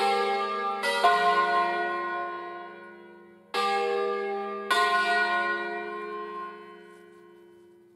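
Church bells from a five-bell set in slightly sharp F, cast in 1957 by Angelo Ottolina, being rung. A pair of strokes lands close together about a second in and two more follow a few seconds later. Each rings on and dies away, leaving a faint low hum near the end.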